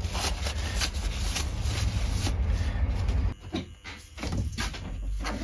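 Metalworking lathe running with a steady low hum, switched off about three seconds in, followed by a few light knocks.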